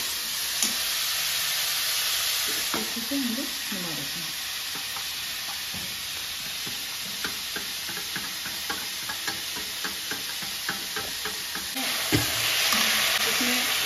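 Onions and capsicum sizzling in oil in a kadhai while a spoon stirs a sauce-and-batter mix in a steel bowl, clinking against the bowl in a quick, regular run of clicks. Near the end a ladle knocks once against the kadhai and the sizzling grows louder as the vegetables are stirred.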